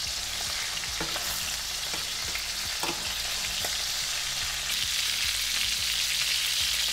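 Chicken thighs sizzling steadily in hot oil in a thick-bottomed stainless steel frying pan on high heat as they are turned over with metal tongs, with a few light knocks of the tongs against the meat and pan.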